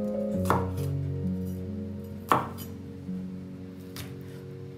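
Chef's knife slicing through garlic cloves and striking a wooden cutting board: three sharp knocks about two seconds apart, the middle one loudest, over background music.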